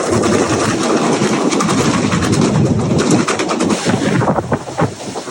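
Wind rushing and buffeting against the microphone, a loud fluctuating rumble that eases off slightly near the end.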